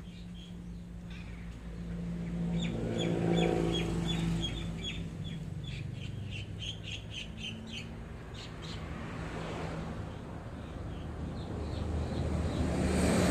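Small birds chirping in quick runs of short, high chirps, several a second, over the low hum of a motor vehicle that swells up about three seconds in and again near the end.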